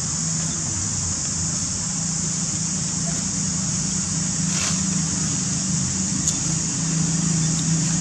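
A steady low engine hum, like a motor idling, under a constant high-pitched hiss, with one brief soft rustle about halfway through.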